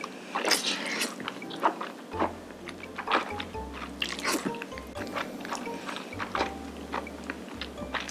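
Slurping and chewing of black bean noodles (jjajangmyeon): a few short slurps among many small wet chewing clicks, over background music.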